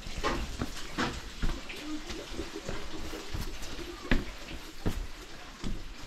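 Footsteps on stone paving and steps: a handful of irregular knocks and scuffs over a low background hum.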